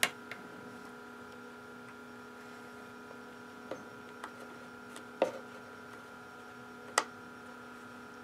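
Fingers pressing the rubber soft keys of an HP 54600A oscilloscope: several short sharp clicks, the loudest at the start and about five and seven seconds in. The keys' worn contact pads need a hard push to register. Under the clicks runs a steady electrical hum made of several fixed tones.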